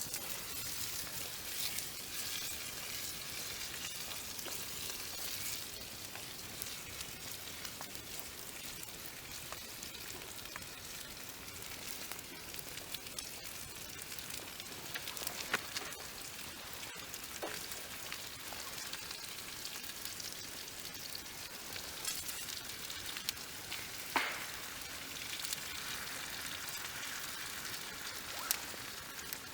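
Potatoes frying in a non-stick pan over a campfire: a steady sizzle, broken by occasional sharp pops, the loudest about 24 seconds in.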